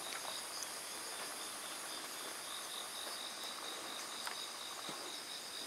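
A faint, steady chorus of crickets trilling at night, with a few soft ticks.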